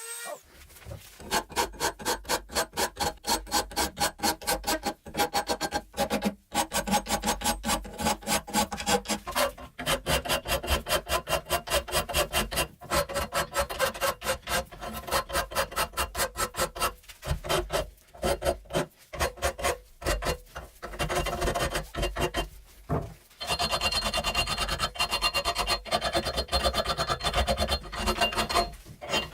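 Rapid back-and-forth rasping strokes of a hand file on metal, about four strokes a second, with a few short pauses between runs.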